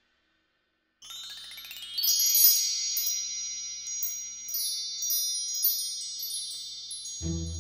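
Silence for about a second, then a chime sweep: a quick run of bright, high bell tones rising in pitch, then ringing on together and slowly fading. Music with low bass notes comes in near the end.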